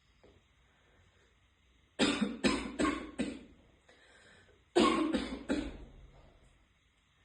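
A woman's harsh barking smoker's cough from heavy vaping, in two fits. Four coughs come about two seconds in, then a short pause, then three more that trail off.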